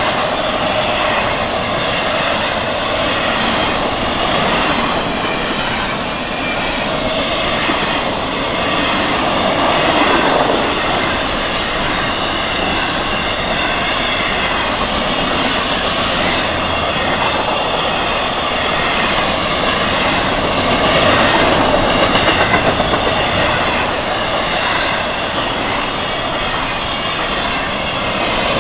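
Freight train passing close by: a steady roar and rumble of steel wheels on the rails as intermodal flatcars roll past, with a short run of quick clacks about three-quarters of the way through.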